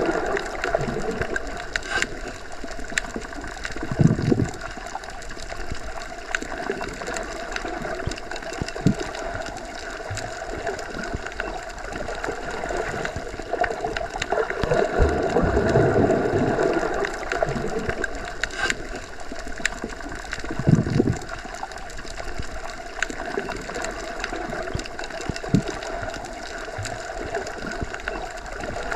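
Underwater ambience as heard submerged in a pool or lake: a continuous muffled watery rush that swells and fades every few seconds, with a few scattered clicks and soft low knocks.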